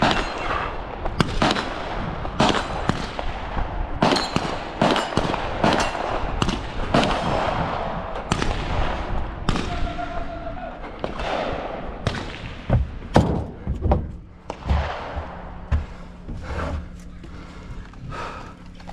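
Repeated gunshots at irregular intervals, roughly one or two a second, from shooters on a competition range.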